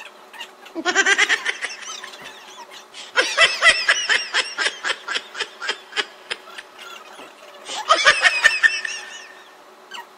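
Laughter in three bouts, about a second in, a long one from about three to six seconds, and a short one near the end, each broken into quick ha-ha pulses about five a second.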